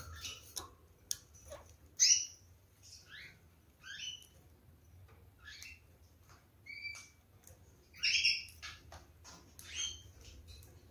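Kakariki parakeets giving a string of short, high chirps with quick pitch slides, the loudest about two seconds in and again near eight seconds, among a few light clicks.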